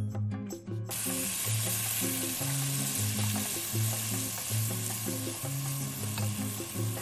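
Sliced red onions frying in oil in a pot, sizzling hard. The sizzle starts suddenly about a second in, as ground pepper, soumbala and fish powder are tipped into the hot oil, and continues steadily while a wooden spoon stirs. Background music with a steady bass line plays underneath.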